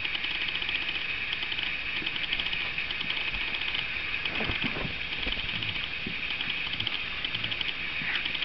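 Staffordshire bull terrier pups and their mother play-wrestling on carpet: soft scuffling, with a brief vocal sound from one of the dogs about four and a half seconds in. Under it runs a steady high-pitched buzz with rapid ticking.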